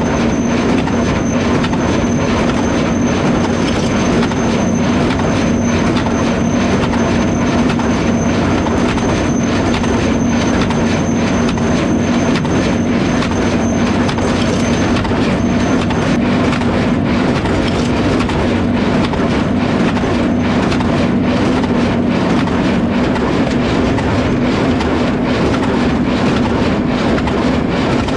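Farmall 460 tractor running steadily under load, pulling a New Holland 269 square baler that is baling hay, with the baler's mechanism clicking over the engine.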